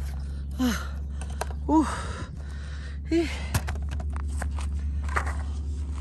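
A man gasping for breath, hard voiced exhalations that fall in pitch about once a second, winded from scrambling up a steep slope. About three and a half seconds in, a quick run of clicks and knocks as the phone is set down on the road.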